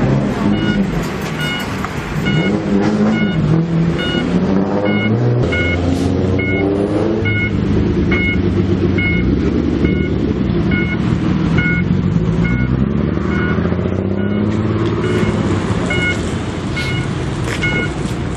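Lowered, tuned cars pulling away one after another, their engines and exhausts revving, the note rising and falling. A short electronic beep repeats about twice a second throughout.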